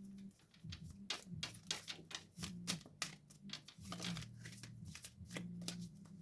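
Tarot cards being handled and laid down on a table: a faint, irregular run of soft clicks, taps and slides, over a low hum.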